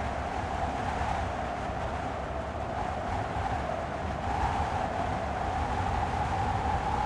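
Wind blowing in a steady rush with a whistling tone that slowly rises in pitch and grows a little louder.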